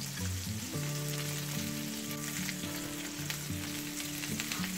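Rainbow trout fillets sizzling and spattering in melted butter in a frying pan, with small crackles as a fillet is turned. Soft background music with held notes plays underneath.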